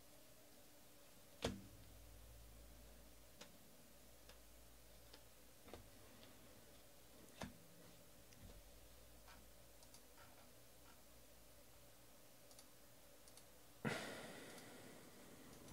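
Quiet, scattered clicks of cardboard trading cards being flicked through by hand, a few seconds apart, with one sharper snap and a short rustle near the end.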